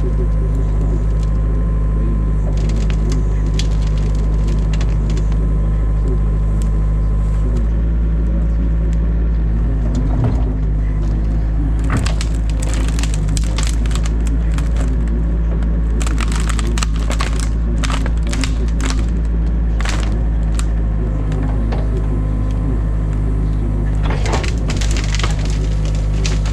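Excavator diesel engine running steadily, heard from inside the cab. Over it, the branches and sticks of a beaver dam crack and snap as the bucket tears them out, in bursts from about halfway through, again a little later, and near the end.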